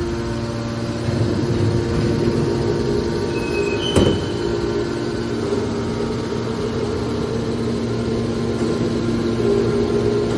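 Hydraulic scrap-metal baler running, its motor and pump giving a steady hum. A short high squeal comes just before one sharp metallic clank about four seconds in.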